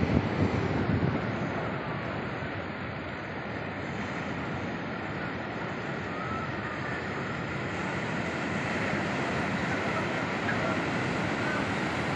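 Sea surf breaking and washing up a sandy beach: a steady rush of waves.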